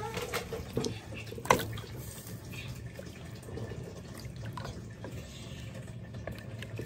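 Meat and broth in a metal pot sloshing and bubbling as a wooden spoon stirs them, with scattered small clicks and one sharp knock about a second and a half in.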